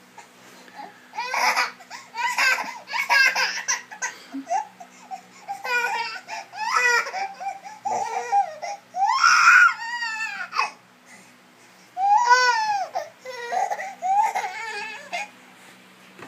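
Infant crying in a string of short, high-pitched wails with brief gaps, starting about a second in.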